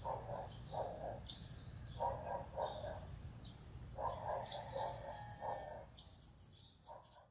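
Lowland white-eyes giving quick, thin, high chirps in runs, busiest in the second half, with a lower call repeated in short pairs between them over a steady low rumble. It all fades out at the end.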